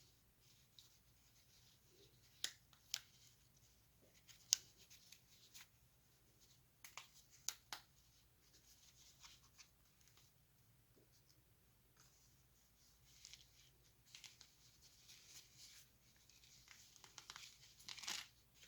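Handling of product packaging and accessories: several sharp clicks and taps in the first half, then soft crinkling and rustling that grows near the end.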